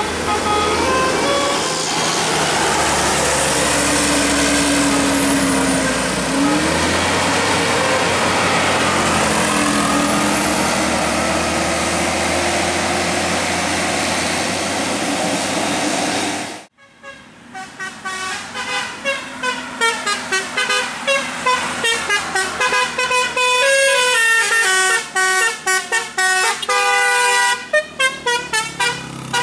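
Vehicle engine and traffic noise with a few held and sliding horn notes. After an abrupt cut partway through, a basuri musical horn plays a fast tune of rapidly changing notes.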